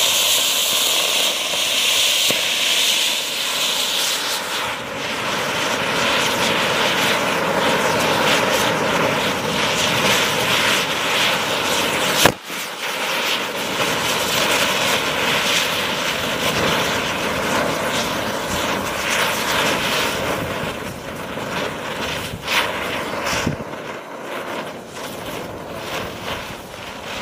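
Anar flower-pot fountain and six chakri ground spinners burning together: a loud, continuous rushing hiss of sparks with a steady whine under it. A single sharp bang about halfway through, where one spinner bursts. The hiss thins out near the end.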